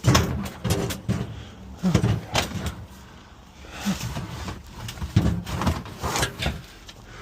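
Scrap metal being handled and dropped onto a pile: a run of irregular clanks and knocks with scraping between them.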